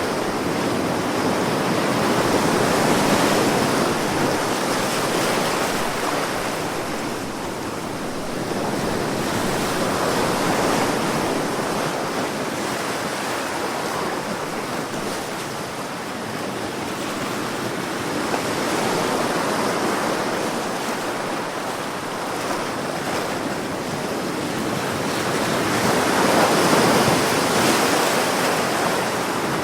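Ocean waves breaking and washing on a shore, a steady surf that swells and eases every several seconds, loudest near the end.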